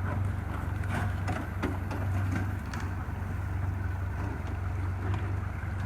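Boat motor running steadily at low speed, a constant low hum with a few faint knocks over it.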